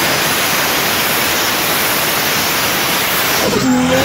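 Nissan Silvia doing a burnout at full throttle: the spinning rear tyres and the engine come through as a loud, steady, rushing noise that overloads the microphone. Near the end, pitched wavering tones rise out of the noise.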